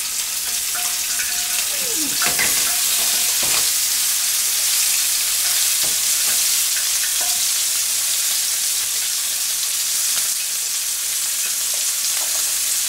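Ribeye steaks sizzling in hot oil in a frying pan, a steady hiss that rises a little about two seconds in as the second steak goes in, with a few light knocks of metal tongs. The sizzle is modest: the cook wants a slightly hotter pan.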